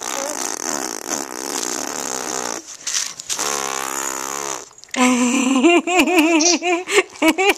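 A woman making funny wordless mouth noises for a baby: a raspy, spluttering blow for a couple of seconds, then a low buzzing drone, then from about five seconds in a run of sing-song voice sounds bouncing up and down in pitch.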